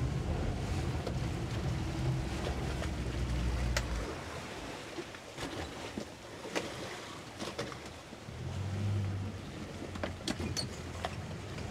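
Boat engine idling low, its hum strong for the first few seconds, fading, then coming back briefly near the end, over the wash of choppy water with scattered sharp slaps and knocks against the hull.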